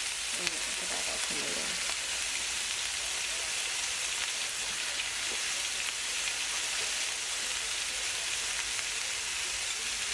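Sliced onions, bell peppers and scallions sizzling steadily in hot oil in a skillet as they cook down.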